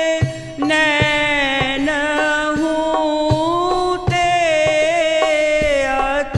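A woman singing a Hindi devotional kirtan in long, held notes that bend and glide in pitch, over a steady percussion beat of about two strokes a second. The singing dips briefly just after the start, then resumes.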